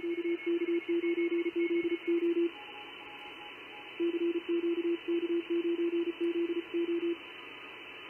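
Morse code (CW) signals received through an Icom IC-7300 HF transceiver's speaker with no antenna connected. A strong low-pitched keyed tone sends two runs of dots and dashes with a pause of about a second and a half between them, over steady band hiss. Fainter, higher-pitched CW signals key on and off behind it.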